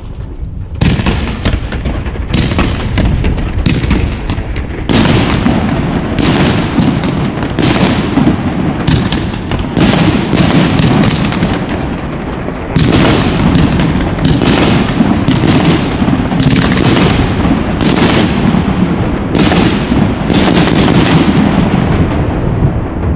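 Hairforce One, a 64-shot, 30 mm-calibre gold-willow compound firework battery, firing in quick succession. Sharp bangs of shots launching and bursting come about twice a second over a continuous rushing noise, with a short, quieter lull about twelve seconds in.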